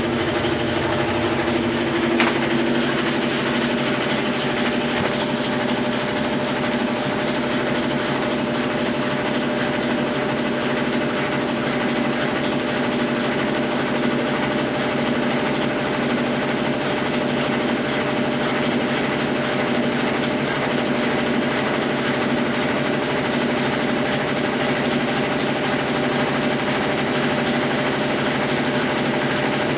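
Consul Facilite 10 kg top-loading washing machine in its wash stage, its Brastemp BWL09 agitator churning the load with a steady mechanical running noise. One sharp click about two seconds in.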